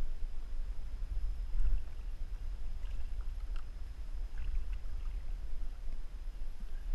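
Steady low rumble of wind and sea water around a plastic kayak, with a few faint light taps now and then.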